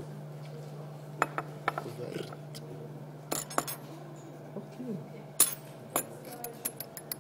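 Scattered sharp clinks and taps of laboratory glassware being handled, the loudest about five seconds in, over a steady low hum.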